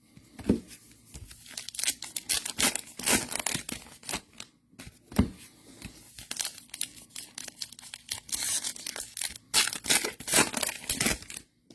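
Foil trading-card pack wrappers being torn open and crinkled by hand, in a string of irregular rips and rustles.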